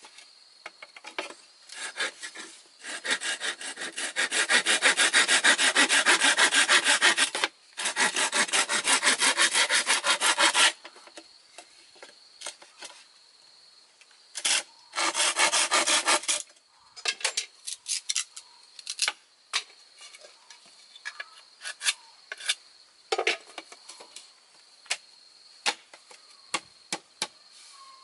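Hand saw cutting bamboo in fast back-and-forth strokes: two long runs in the first half, a shorter run in the middle, then scattered light knocks and scrapes.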